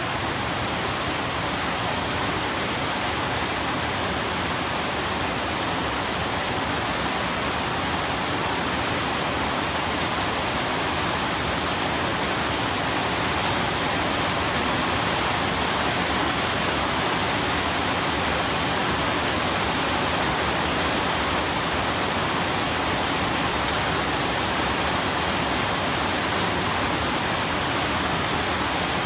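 Steady, even rain, a dense continuous hiss without separate drops or thunder.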